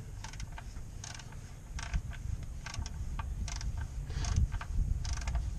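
Ratchet with a 14 mm socket clicking in short runs while backing out a car's oil drain plug, the plug already broken loose and being unscrewed.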